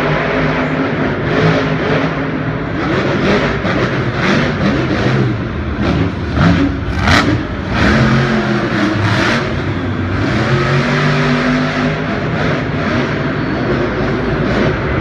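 Monster truck engine revving hard, its pitch rising and falling throughout, with a short sharp crack about seven seconds in.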